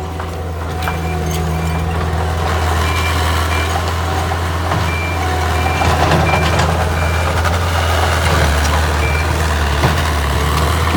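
Takeuchi TL130 skid steer's diesel engine running steadily, a little louder from about 2 seconds in, with short high beeps from its reversing alarm at uneven intervals.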